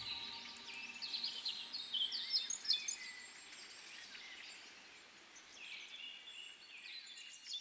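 Forest bird chorus: many birds giving short high whistles and chirps at once, over a faint hiss. The calls are busiest in the first few seconds and pick up again near the end.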